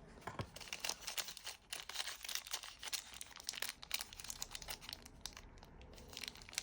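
Plastic packaging crinkling as it is handled and opened, a dense run of irregular crackles and small clicks.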